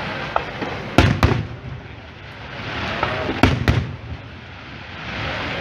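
Aerial fireworks shells bursting: two pairs of sharp bangs, about a second in and again about three and a half seconds in, with a hiss of burning stars swelling between them.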